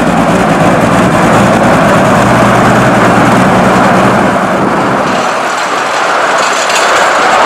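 Engine of the Sutton Miniature Railway's streamlined 15-inch gauge locomotive running steadily as it passes. Its low engine note falls away about five seconds in, while the coupled carriages keep rolling by with steady wheel noise on the rails.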